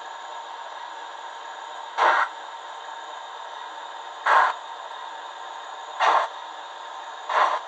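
Fleischmann BR41 model steam locomotive's DCC sound decoder playing steam puffs through its small speaker: four short hissing puffs over a steady background hiss, the gaps shrinking from about two seconds to just over one.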